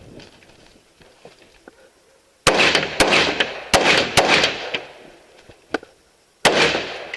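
AR-15 rifle in .223/5.56 firing: four shots in about two seconds, then a pause and a fifth shot, each with a trailing echo.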